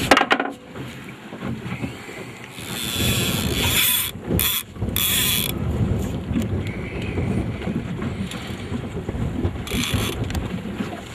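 Heavy Penn 9/0 conventional reel buzzing in several loud stretches as a hooked shark pulls line off against the drag, over wind and a low boat rumble.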